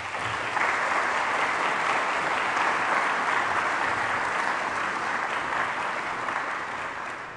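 Audience applauding, a large crowd clapping steadily that fades out near the end.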